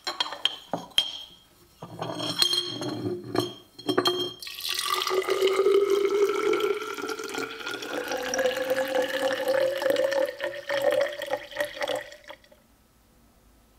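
Glass knocking and clinking as a tall glass cylinder is handled. Then, from about four and a half seconds in, 9% vinegar is poured into the glass, its pitch slowly rising as the glass fills, until it stops about a second before the end.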